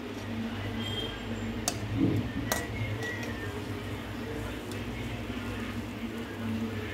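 Bread slices frying in ghee in a metal kadai, a steady sizzle, with a slotted steel spoon clicking against the pan a couple of times about two seconds in.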